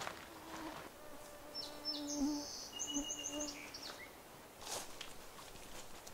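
A flying insect buzzing with a steady, slightly wavering hum that fades out a little past halfway. Brief high chirps sound over it in the middle, and there is a single short scuff later on.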